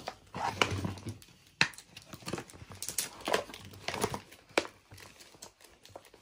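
A glossy printed plastic toy packaging bag being handled and crumpled, giving irregular crinkling crackles.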